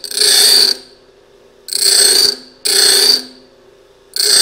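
Bench grinder wheel grinding the dull point of a half-inch twist drill bit in short passes: three bursts of grinding, each under a second, with a fourth starting near the end, over the steady hum of the running grinder. This is the rough grind that brings the damaged point back to shape.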